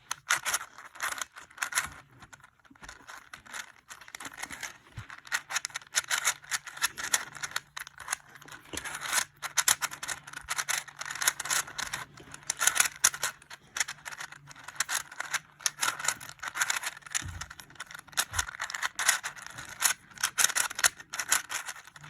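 A 3D-printed 3x3 Rubik's Cube being turned quickly during a speed solve: rapid, irregular clicking and rattling of the plastic layers as they turn and snap into place.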